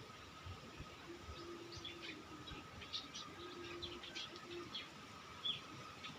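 Several birds chirping in short, high calls scattered throughout. Twice a low note is held for about a second.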